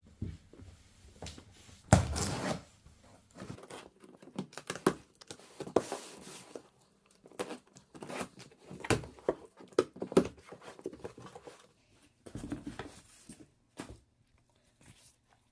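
Packaging being handled and torn open: irregular rustling and tearing with scattered short knocks, the loudest burst about two seconds in.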